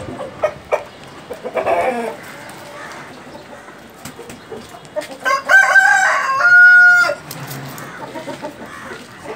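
Aseel rooster crowing once, about five seconds in: a loud call of nearly two seconds that ends on a held, steady note. A shorter call comes about a second and a half in.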